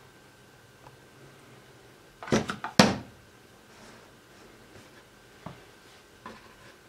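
Cardboard lid of a phone box set down on a table: a quick cluster of sharp knocks and taps about two seconds in, followed later by a few faint handling taps.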